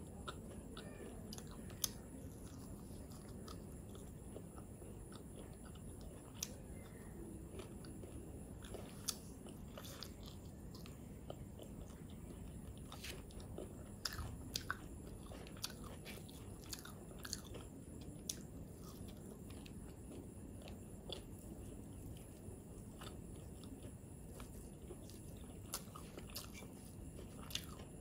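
A person eating rice and chicken curry by hand, with close-miked chewing and many short, sharp wet mouth clicks at irregular intervals.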